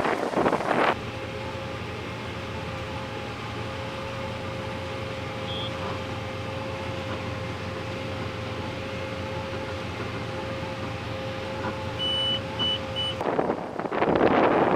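Steady drone of running farm harvest machinery, with a brief high tone about five seconds in and three short beeps near the end; wind noise on the microphone at the start and end.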